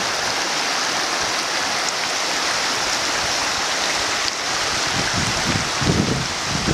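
Shallow mountain stream rushing steadily over stones. From about five seconds in, gusts of wind buffet the microphone.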